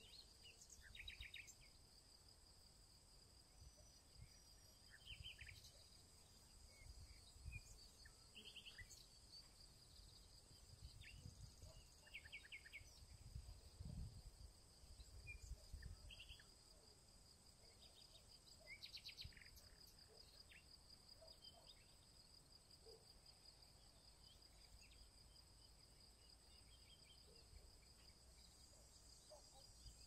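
Faint evening insect chorus, a steady high-pitched pulsing trill, with short bird calls scattered through the first twenty seconds. Low rumbles of wind on the microphone come and go, mostly around the middle.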